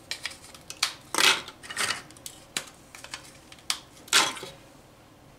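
Petit Beurre biscuits snapped by hand and dropped into the plastic bowl of a food chopper: a series of crisp cracks and light clatters at irregular intervals, loudest about a second in and just after four seconds.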